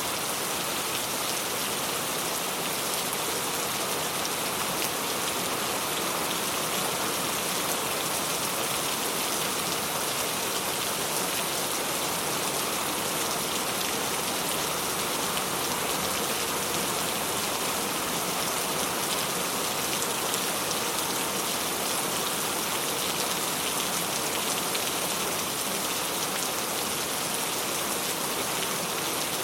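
Steady rain falling, an even, unbroken hiss of raindrops.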